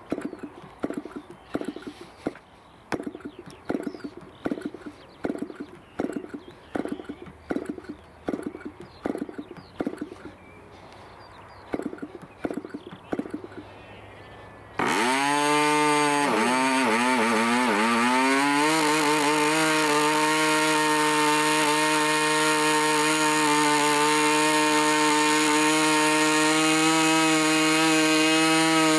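Irvine 20 model aircraft diesel engine, a two-stroke compression-ignition engine, being hand-flicked on its propeller about once a second after port priming. About fifteen seconds in it catches and starts. Its pitch wavers up and down for a few seconds, then it settles into a steady, high-pitched run on a 10x6 prop.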